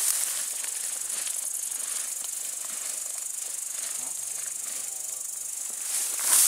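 Footsteps swishing through tall wheat, the stalks brushing and rustling against the walker's legs, over a steady high hiss. The rustling grows louder near the end.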